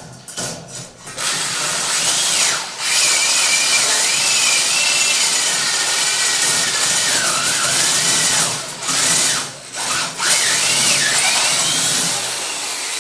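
Corded electric drill boring out a bolt hole in a metal frame tube, the bit grinding through the metal. The motor's whine wavers up and down with the load, and the drill stops briefly about three seconds in and twice more around nine to ten seconds.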